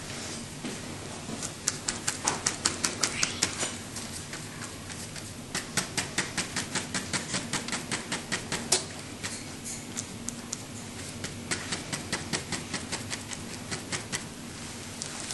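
Rapid sharp taps of a paintbrush on a paint palette, in three runs of about five taps a second.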